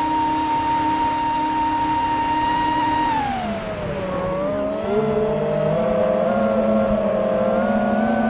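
The FPV quadcopter's four Emax Eco II 1700 KV brushless motors and propellers whining, heard through the onboard camera. About three seconds in the pitch drops as the throttle is eased off, then it creeps back up and holds.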